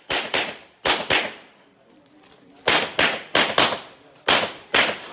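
Handgun firing ten shots in five quick pairs (double taps), each pair a fraction of a second apart, with short pauses between the pairs.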